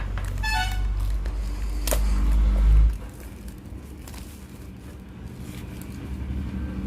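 Hands handling a delivery package: crackling and scraping, a short squeak near the start and a sharp click about two seconds in, over a low rumble that cuts off about three seconds in.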